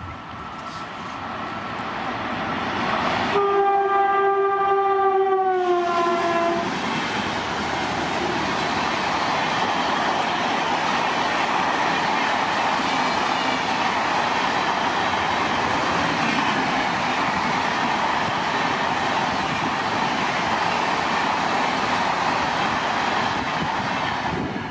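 WAP7 electric locomotive approaching and sounding its horn in one long blast of about three seconds, the pitch falling at the end as it goes by. The express train's coaches then roll past in a steady rush of wheel and rail noise.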